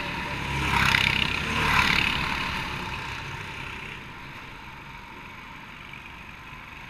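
Racing go-karts going past, their engines swelling twice about a second apart and then fading to a steady, quieter background.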